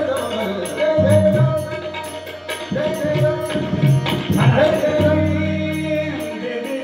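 Live Indian devotional music: tabla drums playing a steady rhythm under harmonium and sung, held notes, with a sharp high beat keeping time throughout.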